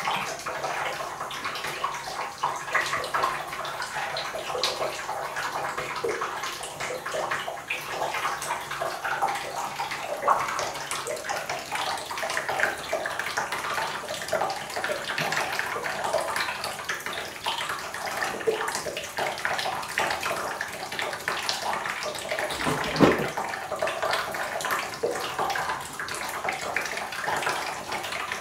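Thin stream from a bathtub faucet running and splashing steadily onto the bottom of an empty tub. A single thump about two-thirds of the way through.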